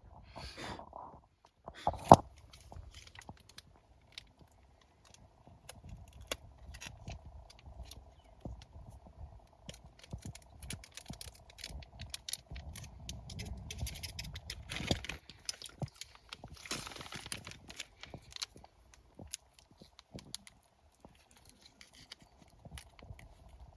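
Scattered clicks, scrapes and crackles of camp food being handled and eaten from a plastic container, with one sharp click about two seconds in. A faint steady hum runs underneath.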